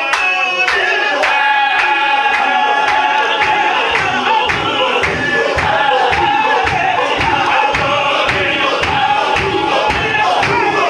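Sufi zikr: a group of men chanting in unison, with a steady beat of about two strokes a second from the dancers' clapping hands and stamping bare feet.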